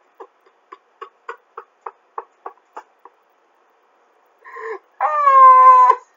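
A man laughing: a run of short laughs, about three a second, that stops after about three seconds, then a long, high-pitched squealing laugh near the end.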